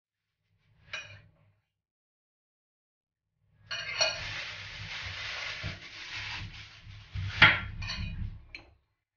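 Metal fork mashing soft butter in a glass bowl: a brief knock about a second in, then several seconds of scraping and tapping against the glass, with one sharp clink near the end as the loudest moment.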